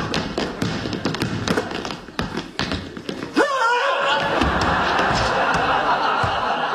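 Basketball bouncing and dribbled on a wooden gym floor: a run of thuds, over steady studio-audience laughter. A short, sliding vocal cry comes about halfway through.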